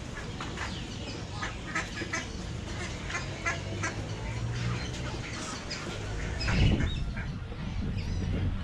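Ducks quacking, a rapid run of short calls, with a louder low rumble about two-thirds of the way in.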